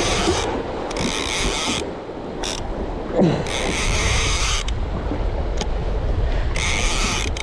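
Shimano Talica 12 lever-drag reel being cranked in spurts to bring up a hooked fish, its gears whirring four times for about a second each, with a brief blip in between. Wind buffets the microphone and waves slosh underneath.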